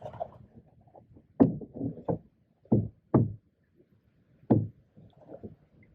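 Canoe paddles knocking against the canoe's hull about five times, short hollow strikes spread unevenly, with faint rustling of paddling between them, while the canoe is manoeuvred to turn around.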